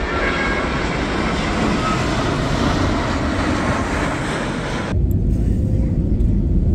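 Jet airliner flying low overhead, a loud even rush of engine noise with faint whining tones. About five seconds in it cuts abruptly to a deep rumble heard from inside an airliner cabin on the ground.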